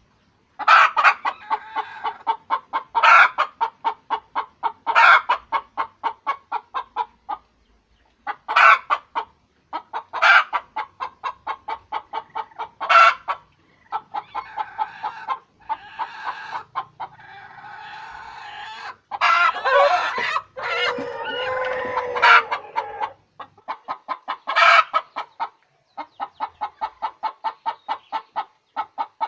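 Hen cackling her egg-laying song: runs of rapid clucks, each ending in a louder drawn-out squawk about every two seconds. About two-thirds of the way through comes a longer, drawn-out call.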